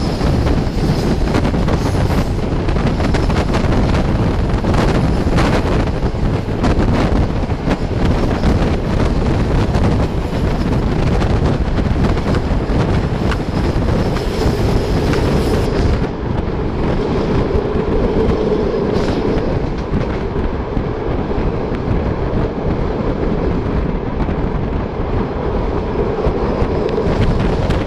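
Passenger train running at speed, heard from an open carriage window: a steady rumble of the coaches' wheels on the rails with wind buffeting the microphone. Frequent clicks of wheels over the track sound through the first half, and after that the sound dulls to a steadier hum.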